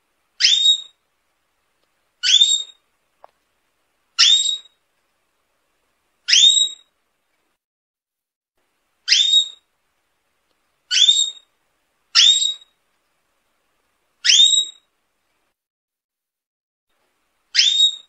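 Domestic canary giving short, rising whistled call notes, nine in all, about one every two seconds, with silence between.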